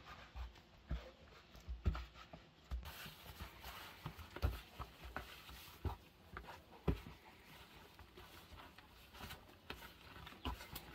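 Hands kneading a stiff dough in a plastic bowl: irregular soft thuds and knocks as the dough is pressed and pushed against the bowl.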